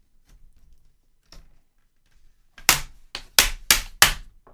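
Plastic screen-bezel clips on an Acer E5-571 laptop snapping loose as the bezel is pried off with a flathead screwdriver. Faint ticks at first, then a quick run of about four sharp clicks in the second half.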